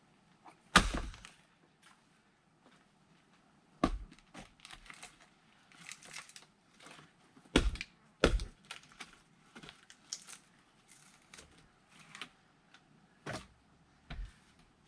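Firewood being split by hand: six heavy knocks of the splitting tool on wood, the loudest about a second in, with lighter cracking and rustling of wood between them.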